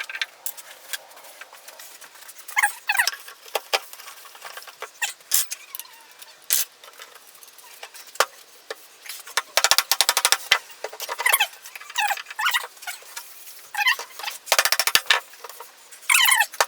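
Squeaks and runs of rapid clicking from the metal parts of an antique hand-powered post drill being worked during reassembly. Short squeaky sounds come every second or two, with two bursts of fast, even clicking, one about ten seconds in and one near the end.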